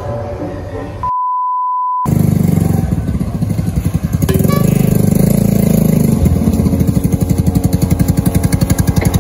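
A steady one-second electronic beep tone about a second in, then a small motor scooter's engine running as the scooter rides up and stops close by, with a fast regular pulsing beat.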